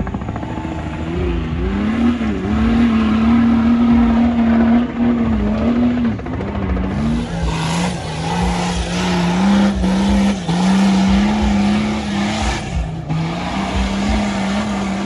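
Off-road 4x4 engine working hard on a trial course, its revs rising and falling in steps. About halfway in, a loud rushing noise joins it, broken by a couple of short gaps.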